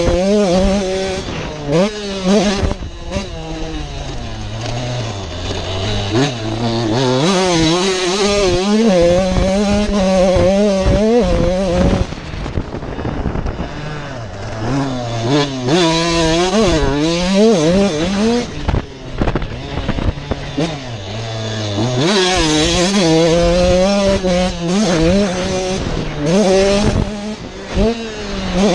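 2019 Husqvarna TC85's 85 cc two-stroke engine on a motocross ride, its revs climbing and falling again and again as the throttle is opened and closed through the track, with two longer drops to low revs.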